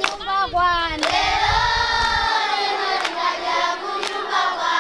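A crowd of schoolchildren singing and calling out together in loud, overlapping voices, one long note held briefly, with a few sharp claps.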